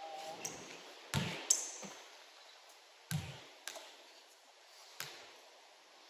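A basketball bouncing on a gym floor: two deep thuds about two seconds apart, with sharper taps and clicks between them and a short high squeak.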